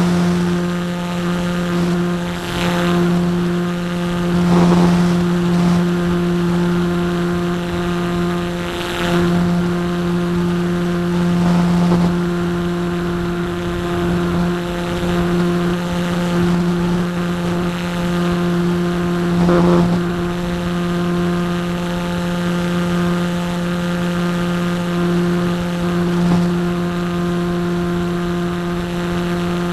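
Parkzone Radian's Firepower 10 brushless electric motor and propeller running at steady cruise throttle, heard from the plane's onboard camera: a constant, unchanging buzzing drone. A few brief rushes of air noise come and go over it.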